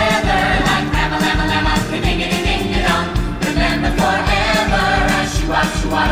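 Group of voices singing together in chorus over upbeat music with a steady beat.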